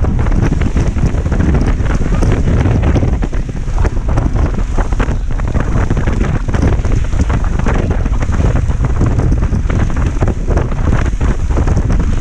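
Heavy wind buffeting the microphone aboard a speedboat running at speed, with the rush of the wake and the boat's motor under it. The noise is loud and steady, fluttering constantly.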